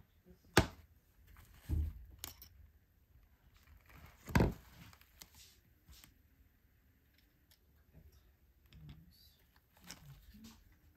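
Hands taking apart a pack's plastic pivot and its coil spring: a few sharp plastic clicks, the loudest about half a second in and about four and a half seconds in, a dull thump just under two seconds in, and faint fabric rustling between.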